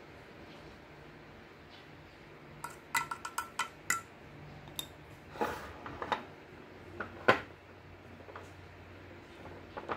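Kitchen clinks of a spoon and glass spice jars against a stainless steel bowl. About three seconds in comes a quick run of six or so ringing taps, then a few scattered louder knocks; the loudest falls a little past the middle.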